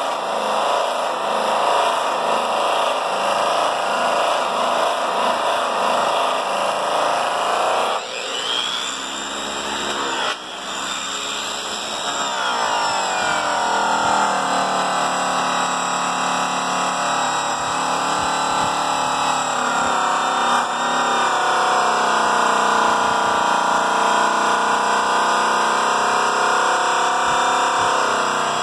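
Makita electric angle polisher with a yellow cutting pad running against an aluminum truck drive wheel during the first-cut polishing stage. Its steady motor whine dips in pitch about eight seconds in and climbs back up a few seconds later, then runs on steadily.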